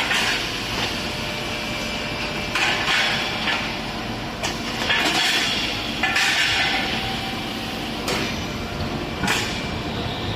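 Machinery on a truck wheel rim production line: a steady mechanical hum with repeated hissing air releases and several sharp metallic knocks.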